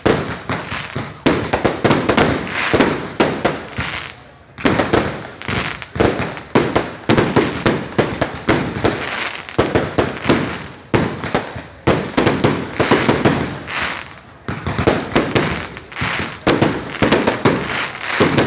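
Fireworks going off in a dense, continuous barrage of sharp bangs and crackles, easing briefly about four seconds in and again around fourteen seconds.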